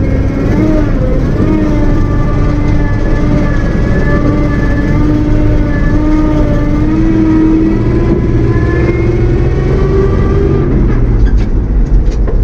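Loaded grain truck's 454 big-block V8 heard from inside the cab, pulling steadily as the truck gathers speed. Its pitch climbs slowly for most of the stretch.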